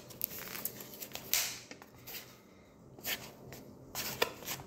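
Scattered light clicks, taps and short rustles of hands handling food and a plastic feeding dish on a tabletop.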